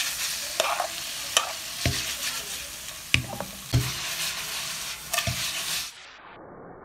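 Chicken hearts sizzling in ghee in a non-stick frying pan while a spatula stirs them, knocking against the pan about six times. Near the end the sizzle cuts off sharply, leaving a fainter steady hiss.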